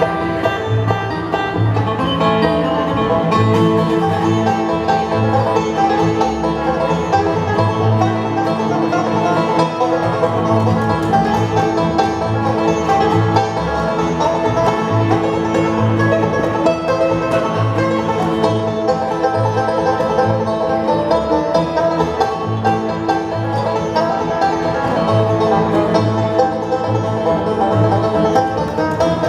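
Live bluegrass band playing an instrumental stretch at a brisk pace, banjo picking over guitar, with an even, regular beat in the low end.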